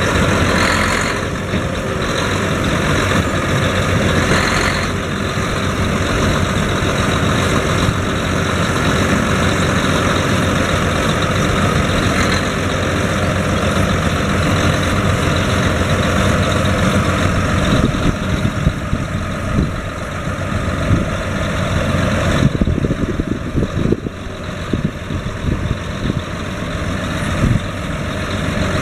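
John Deere 9530T tracked tractor's 13.5-litre six-cylinder turbo diesel running steadily. About two-thirds of the way through, the sound turns more uneven and loses some of its high end.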